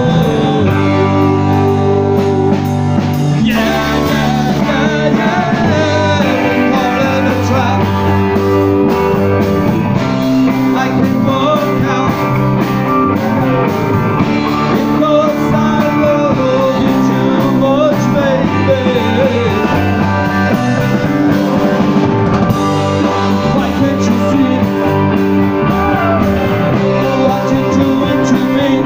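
Live rock band playing loud and steady: electric guitars, bass and drum kit, with a man singing.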